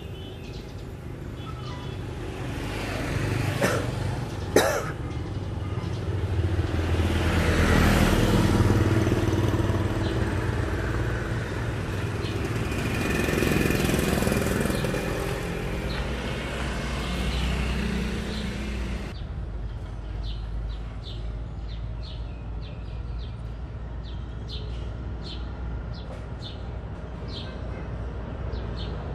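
Small single-cylinder four-stroke Honda Monkey Z50 engine running. It swells louder twice and has two sharp clicks about four seconds in, then about two-thirds of the way through it drops suddenly to a quieter steady drone with regular ticks.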